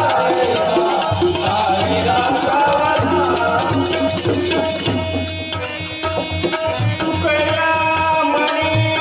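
A Marathi devotional bhajan group playing: a melody with held notes over tabla and jingling hand percussion.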